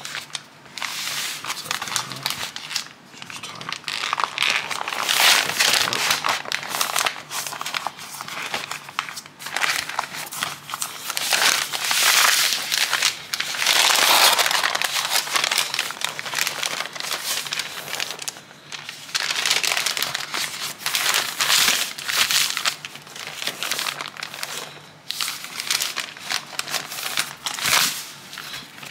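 Butcher paper crinkling and rustling in irregular bursts as it is folded and pressed down by hand around a wrapped brisket.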